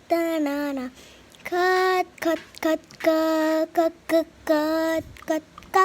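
A child singing in a high voice: a few long held notes with short sung syllables between them.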